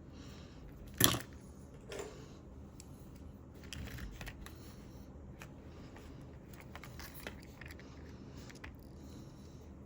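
A sharp click about a second in, a softer click a second later, then scattered faint ticks and taps of small tools and parts being handled at a soldering bench.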